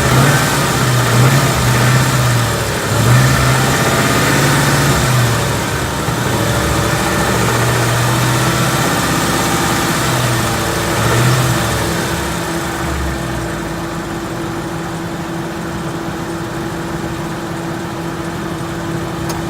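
2014 Ford Coyote 5.0 V8 idling after a cold start, getting a little quieter about two-thirds of the way in, with no tick or piston slap that the owner can hear; he judges it healthy. Near the end a single click is the A/C compressor clutch engaging.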